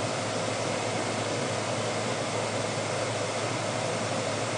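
Steady air-conditioner noise in a small room: an even hiss with a low hum underneath.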